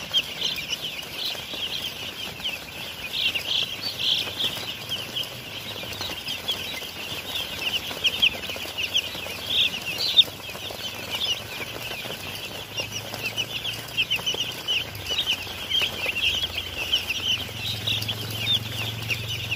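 A crowded flock of young chicks peeping continuously, many short, high, falling cheeps overlapping at once.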